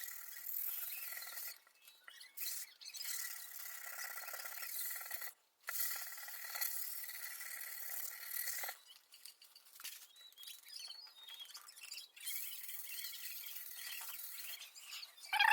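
Sandpaper rubbing over a cured epoxy resin patch on broken glass, smoothing it in long stretches of scraping strokes with short pauses, sparser in the second half. It ends with a brief sharp sound.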